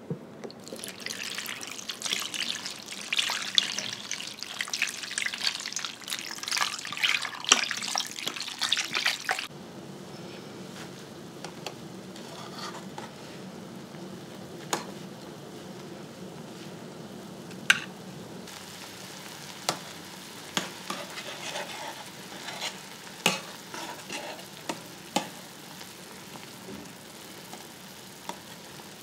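Stockpot of frozen vegetable scraps and chicken bones heating on the hob: dense crackling and sizzling for about the first nine seconds, then a quieter steady simmer broken by scattered sharp clicks of a metal skimmer against the stainless-steel pot as the foam is skimmed off.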